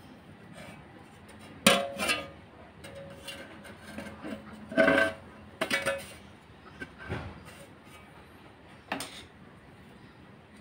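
Aluminium fan blade and metal fan parts clinking and knocking as the blade is handled and fitted onto the motor shaft of a standing fan. About half a dozen irregular clinks with brief ringing, the loudest about two seconds in and near the middle.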